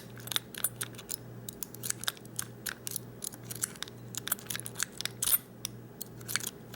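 Half-rake lock pick raking inside the keyway of a Master Lock Magnum disc padlock under light tension: quick, irregular metallic clicking and scraping as the pick works the discs.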